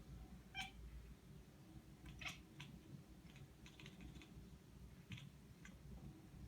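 A cat chattering at birds: faint, quick clicking sounds in short runs of a few clicks each.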